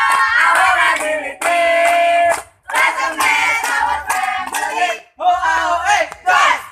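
A group of students chanting a yel-yel cheer in unison, with loud shouted and sung phrases and short breaks between them.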